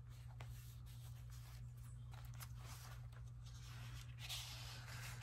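Paper tags and card in a junk journal being handled: faint rustles and soft taps, with a louder brush of paper about four seconds in as the tags are drawn out of a pocket. A steady low hum runs underneath.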